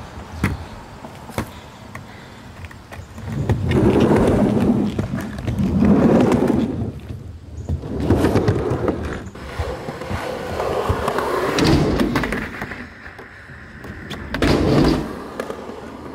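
Skateboard wheels rolling over a pump track, the rumble swelling and fading about five times as the rider pumps through the rollers and berms, with a few sharp clicks and knocks of the board.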